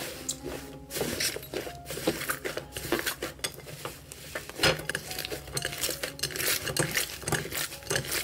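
Crumbly 'tofu-dregs' fluffy slime being kneaded, squeezed and torn apart in a glass bowl: a dense, irregular crackle of small clicks and pops.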